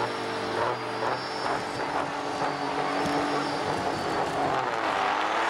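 Diesel engines of two semi-truck tractors running and being revved at the start line before a truck drag race launch, a steady engine drone whose pitch shifts now and then.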